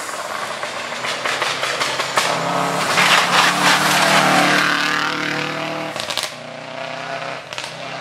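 Rally car at full speed on a gravel stage, its engine growing louder as it approaches and passing close by. The pitch drops as it goes past and the engine keeps running as it drives away, with a sharp crack about six seconds in.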